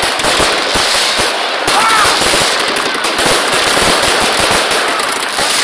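A dense fireworks barrage going off: rapid bangs and crackling stars that overlap with no break.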